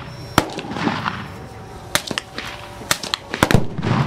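Several rifle shots crack out at irregular intervals at Tannerite targets. Near the end, one Tannerite target detonates with a sharp bang.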